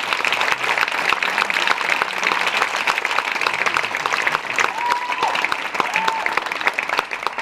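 Audience applauding with many hands clapping, and a couple of brief high cheers from the crowd about five seconds in.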